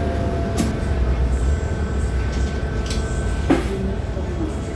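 Cabin noise aboard a New Flyer XDE60 hybrid articulated bus under way: a steady low rumble with a thin steady whine over it. Sharp rattles or knocks come about half a second in and again, loudest, about three and a half seconds in.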